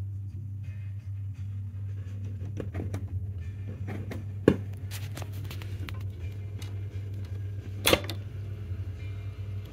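1960 Grundig SO-112US stereo console radio giving out a steady low hum with scattered crackles as its tuning knob is turned, and no station comes through: the set has basically no reception. A sharp pop comes about halfway through, and a loud click near the end as a push-button is pressed.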